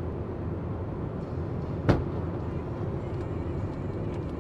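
Steady road and engine noise heard from inside a moving car, broken about two seconds in by one sharp, loud bang: a tyre bursting on the truck ahead, which throws up dust and debris.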